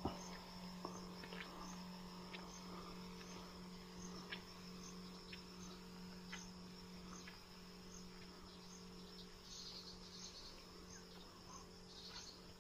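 Faint chorus of crickets or other field insects: a steady high trill with small regular pulses about twice a second, over a low steady hum.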